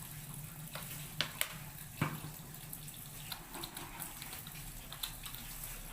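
Water running steadily from a tap into a sink, with a few sharp clicks and knocks about one and two seconds in, over a low steady hum.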